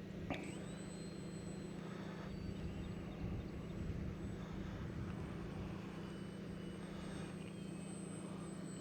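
Steady low hum and wind rumble muffled by a furry microphone windscreen, with the faint drone of a small electric RC airplane, a Micro Draco, flying in the distance. One short click about a third of a second in.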